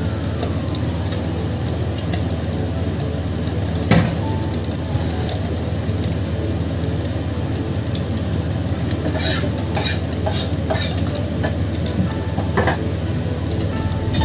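Obtuse barracuda frying in hot oil in a wok over a gas burner: a steady sizzle with a low hum underneath, scattered pops, one sharp click about four seconds in and a run of clicks in the second half.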